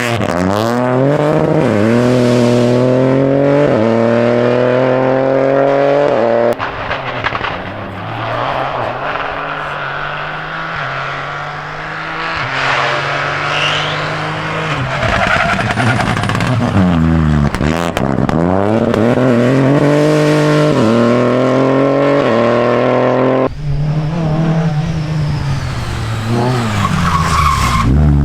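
Rally cars at full throttle, the engine pitch climbing and dropping back in steps with each upshift, with tyre skidding and squeal as a car slides through a corner. The engine note changes abruptly twice as one car gives way to the next.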